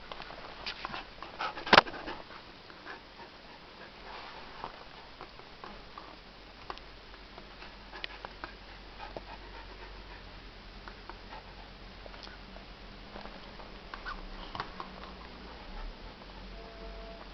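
Rough collie at play with a kitten: scattered small knocks, clicks and scuffling, with one sharp knock about two seconds in.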